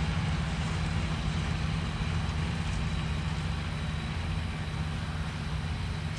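A vehicle engine running at a steady speed: an even, low hum that does not change.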